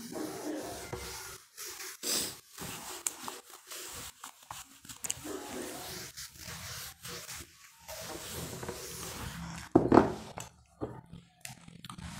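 Handheld whiteboard duster rubbing across a whiteboard in irregular wiping strokes, with short pauses between them and a louder knock about ten seconds in.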